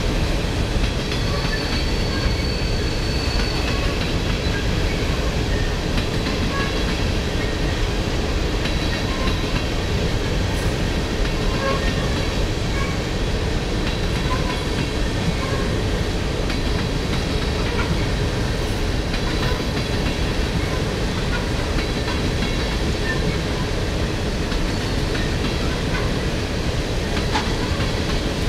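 CSX coal train's hopper cars rolling past at steady speed: continuous wheel-on-rail noise with no let-up, and a faint thin high squeal now and then.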